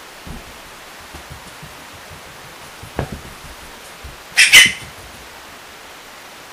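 A thump about three seconds in, then a short, loud, high-pitched double yelp from a small dog about a second and a half later, over a steady hiss.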